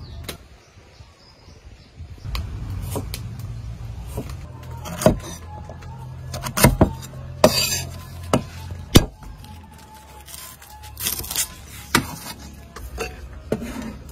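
A knife cutting lemongrass stalks on a thick wooden chopping block: irregular sharp knocks, the loudest in the middle, over a steady low hum.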